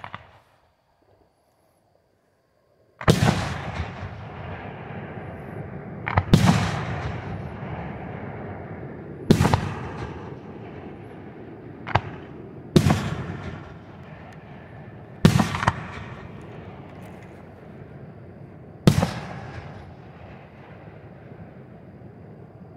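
Aerial fireworks shells bursting: about seven sharp booms a few seconds apart, starting about three seconds in, each trailing off in a long rolling echo.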